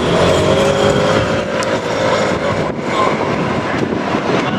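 JR Kyushu KiHa 47 diesel railcars running past close by: engine and rolling wheel-on-rail noise, steady and loud, with a faint tone sliding slightly lower in pitch over the first half.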